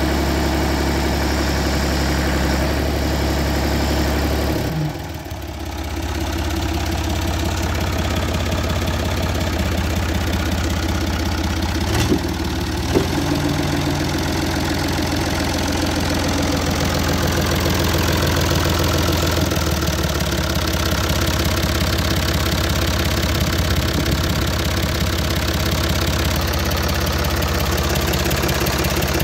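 Ford 555 backhoe loader's engine idling steadily. The sound dips briefly about five seconds in, and there are two light clicks around twelve to thirteen seconds in.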